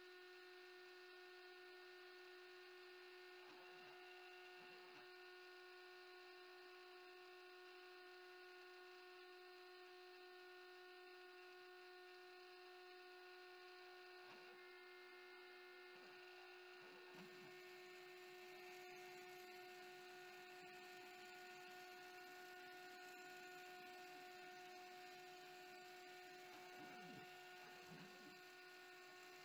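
Very faint, steady hum of a CNC router spindle cutting HDPE, a few constant tones over a thin haze, a little fuller from about halfway through.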